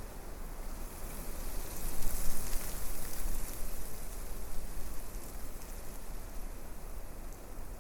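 Wind blowing through forest trees, a steady rushing hiss over a low rumble, gusting up about two seconds in and then easing.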